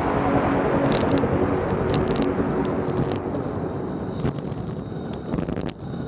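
Wind rushing over the camera microphone and a road bike's tyres humming on asphalt at about 24 mph. The noise eases somewhat in the second half, with scattered light clicks and knocks.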